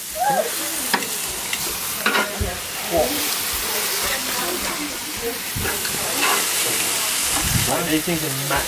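Meat and sliced vegetables sizzling steadily on a barbecue hotplate, with occasional clinks of metal tongs.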